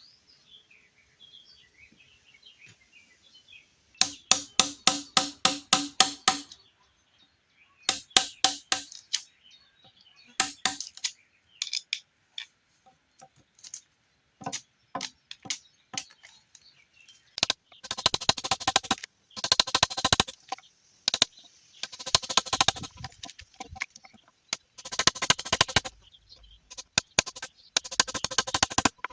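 Bursts of rapid blows from a hand tool striking timber, about four a second, with a faint metallic ring on each blow. The bursts stop and start several times.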